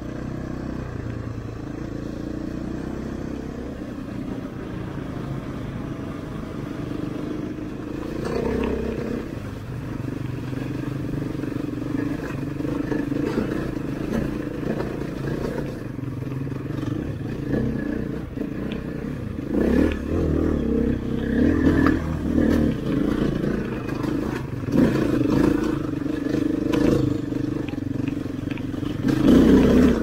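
KTM trail motorcycle engine running under way, heard from the bike itself. It is a steady drone at first; from about twenty seconds in the revs rise and fall unevenly, with knocks as it rides over rough ground.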